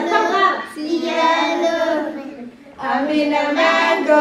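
A group of young children singing together in unison, with a woman's voice among them. The phrases are sung on held notes, with a brief break about two and a half seconds in.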